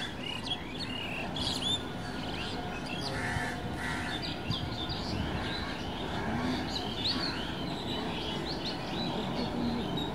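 Birds calling: many short, high chirps throughout, with two harsh crow caws about three and four seconds in, over a steady low background noise.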